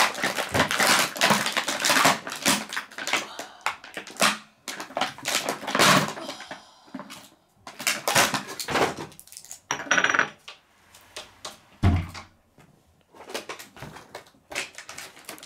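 Small porcelain toy teacups, saucers and teapot clinking and knocking as they are set down on a wooden table, with plastic packaging crinkling, densest at the start. A heavier knock comes about twelve seconds in.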